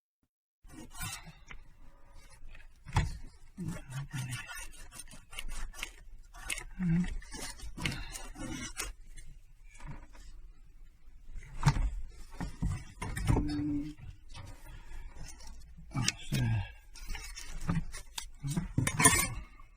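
Hands handling tools and fittings at close range: irregular knocks, clicks and rubbing or scraping, with a few louder knocks scattered through.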